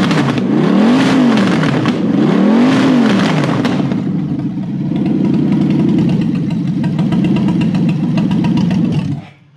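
Toyota 1UZ-FE 4.0 L V8 running on an engine stand with open exhaust, quite noisy: revved three times, then idling steadily before cutting off suddenly near the end. It holds a good idle even though the engine has a burnt valve.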